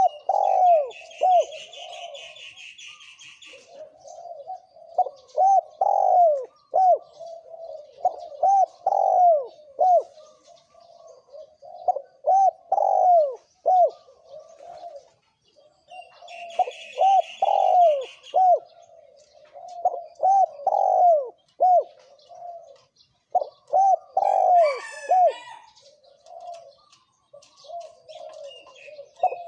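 Spotted doves cooing over and over in the 'thổ kim' call style used to lure wild doves: phrases of short rising-and-falling coo notes with brief pauses between them. Twice a higher buzzy rattle sounds for a couple of seconds, and a brief high chirp comes near the end.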